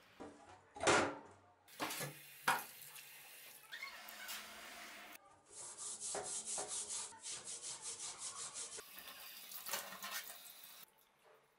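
A stiff brush scrubs a rusty steel cleaver blade with cleaning powder in a stainless-steel sink in quick, rhythmic strokes, clearing the loosened rust after electrolysis. Near the end a tap runs water over the blade. A few sharp knocks come in the first seconds.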